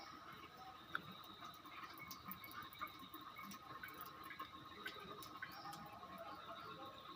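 Faint nature ambience: a steady chorus holding two high pitches, with scattered small clicks, ticks and faint chirps.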